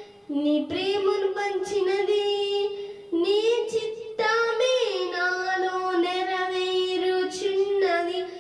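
A young girl singing a Telugu Christian song unaccompanied into a handheld microphone, holding long notes in phrases with short breath breaks between them.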